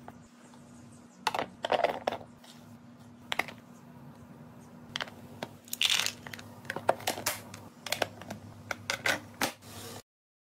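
Food pieces poured from a stainless steel measuring cup into a plastic salad container, rattling and ticking against the plastic in several short separate pours, the longest about six seconds in.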